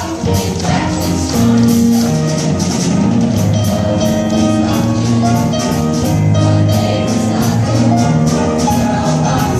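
Music: held pitched notes over a steady beat of short percussion hits.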